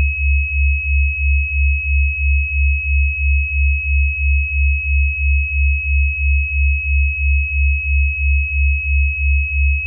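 Synthesized healing-frequency tones: a steady high-pitched tone held unchanged over a deep hum that pulses about three times a second.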